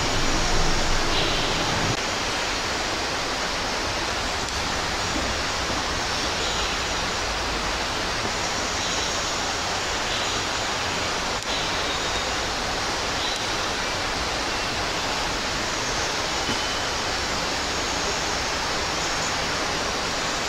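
Steady, even rushing noise with no distinct events, and a low rumble under it that stops about two seconds in.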